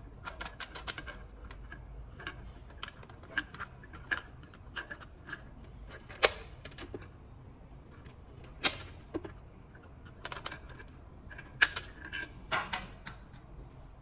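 A key clicking and rattling in the emergency key cylinder of a zinc-alloy smart lever-handle door lock as it is inserted and turned to unlock, with the lever handle being worked. A run of small irregular clicks, broken by three sharper clacks about six, eight and a half and eleven and a half seconds in.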